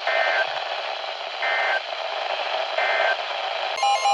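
Three short, harsh data bursts of the Emergency Alert System's SAME end-of-message code, each under half a second and about 1.4 s apart, over steady radio static: the alert message has ended. Just before the end a steady alert tone starts, with a lower tone beeping under it.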